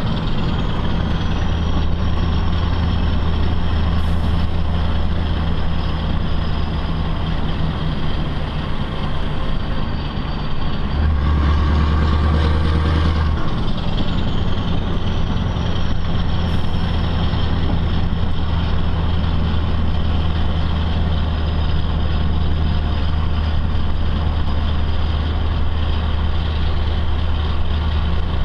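Scania R500's V8 diesel engine heard from inside the cab, running steadily with the truck loaded with 25 t of gravel. About eleven seconds in, the engine grows louder for a couple of seconds, and a faint high whistle rises and then falls away.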